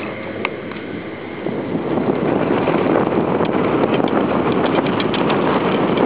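Skis sliding over snow with wind rushing over the microphone, getting louder about two seconds in.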